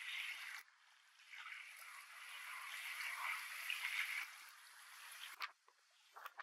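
Choppy water washing and splashing, surging up and dropping away in waves, with a sharp click about five seconds in and a few more clicks at the very end.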